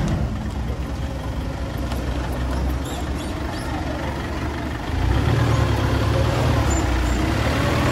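Mitsubishi L200 pickup truck on the move: a steady engine and road rumble that grows louder about five seconds in.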